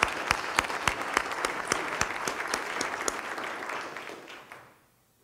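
Audience applauding, with a few sharp claps from close by standing out over the rest. The applause fades away about four and a half seconds in.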